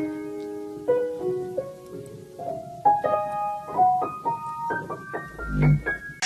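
Piano notes struck one or two at a time at an uneven pace, climbing gradually higher in pitch. There is a short low thud about five and a half seconds in.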